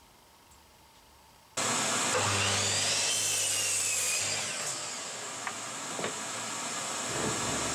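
Electric mitre saw running, starting suddenly about one and a half seconds in, with a high whine that bends down and back up as it runs.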